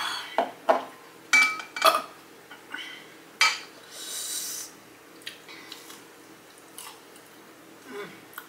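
Several sharp glass clinks and taps, some with a short ring, in the first two seconds and again about three and a half seconds in, as a drinking glass and a small glass bowl of ranch are handled. Then a brief scraping hiss as a Flamin' Hot Cheeto–coated fried pickle is dipped in the ranch, followed by a few faint clicks.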